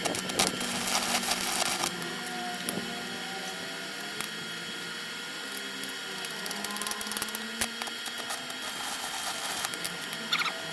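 Homemade electric coconut grater built from a washing machine motor, running with a steady hum while coconut is scraped against the spinning blade. There is dense rasping for about the first two seconds, then scattered scraping ticks.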